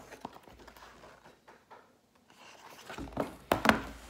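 Pages of a paperback picture book being turned by hand: mostly quiet at first, then a quick run of loud paper rustles about three seconds in.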